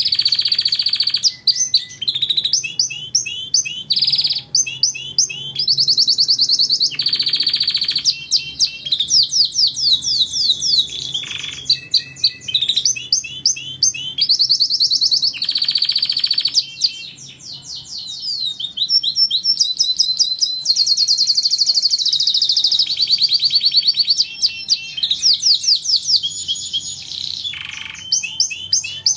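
Domestic canary singing a continuous song. Fast trills of rapidly repeated notes alternate with long rolls held at one high pitch, with only brief pauses between phrases.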